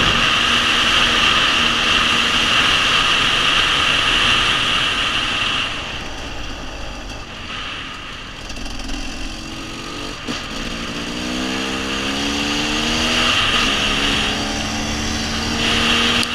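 KTM 300 two-stroke dirt bike engine running under the rider at speed, with a rush of wind noise. About six seconds in it eases off and quietens, then near the middle it revs up with rising pitch, breaks off briefly as it shifts, and pulls on at a steadier pitch.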